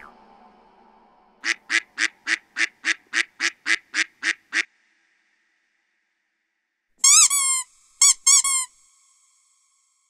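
Prank sound effects for dogs: a quick run of about a dozen short, identical calls, roughly three a second, then after a pause a few high, pitch-bending squeaks.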